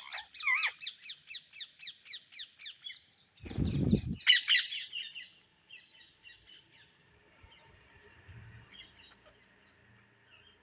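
Indian ringneck parrot giving a fast run of short, repeated high squawking calls, about five a second, that break off after about three seconds. A brief low muffled noise comes next, then another short loud burst of calls, and then fainter scattered calls that die away.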